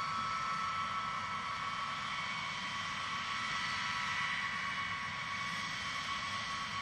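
B-52H bomber's eight TF33 turbofan engines running at taxi power, a steady high whine over a rushing noise.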